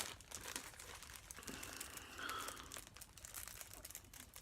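A small bag crinkling and rustling as it is opened and handled, with faint irregular crackles.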